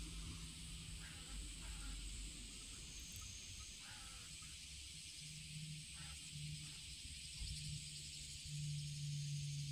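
Faint summer paddy-side ambience: a steady high-pitched insect drone, with a low steady hum that grows louder near the end.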